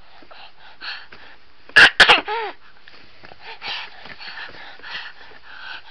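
A baby's sudden loud vocal outburst about two seconds in: a sharp burst followed by a short squeal that falls in pitch. Soft breathy huffs follow.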